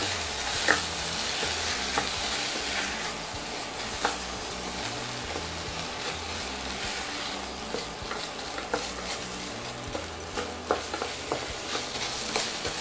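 Metal spatula stirring and scraping raw rice as it fries in ghee in a stainless steel pot: a steady sizzle with scattered clicks and scrapes of the spatula against the pot. The rice is being toasted before the water goes in.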